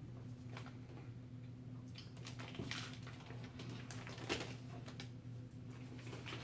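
Irregular small clicks and crackles of a person eating a sub sandwich, chewing and handling it, with one sharper click about four seconds in, over a steady low hum.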